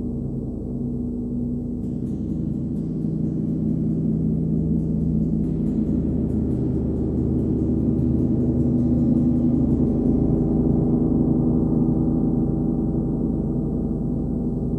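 39-inch Nepalese wind gong played with a hard rubber ball mallet, ringing with a deep, continuous wash of many sustained tones. A high shimmer joins in about two seconds in and fades out around ten seconds, and the sound swells a little past the middle before easing off.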